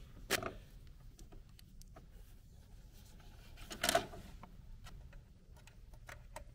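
Quiet handling of LEGO plastic parts: small clicks and taps as pieces and a minifigure are picked up and fitted together, with two louder clacks, one just after the start and one about four seconds in.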